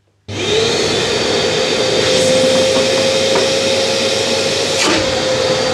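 Workshop vacuum with a homemade cyclone separator and 80 mm pipe switched on about a quarter second in, then running steadily at full suction with a steady whine. A few brief knocks come through the airflow noise.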